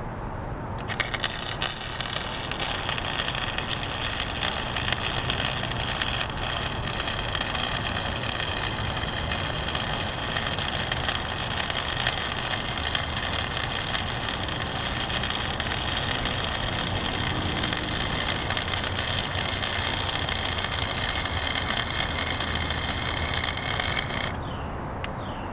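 Flux-core wire welding arc from a Harbor Freight 90-amp DC electrode-negative wire-feed welder, crackling steadily as a bead is run on mild steel pipe. The arc strikes about a second in and stops about a second before the end.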